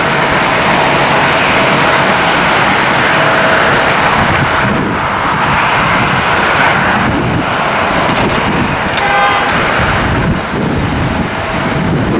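Steady, loud noise of jet airliner engines, with a faint steady whine running through it. About nine seconds in there is a brief high, horn-like toot.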